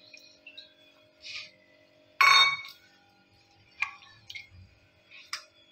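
A steel bowl clinks loudly once on a hard counter about two seconds in, ringing briefly. Lighter clicks and scrapes come from a spatula stirring a thick milk mixture in a nonstick pan, over a faint steady hum.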